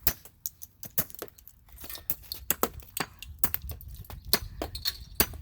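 Loose plastic pieces of a broken-apart Rubik's Cube clicking and clattering, a quick irregular run of sharp clicks.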